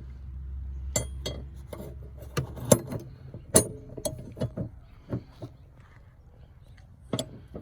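Irregular metal clinks and clicks of a jack-handle tool being fitted into the Toyota Sienna's spare-tire lowering winch, the two loudest a little under three and about three and a half seconds in. A low rumble runs under the first two seconds.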